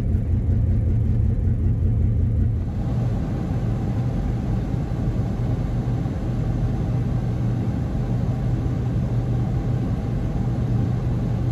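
1979 Chrysler Cordoba's V8 engine idling with a steady low rumble.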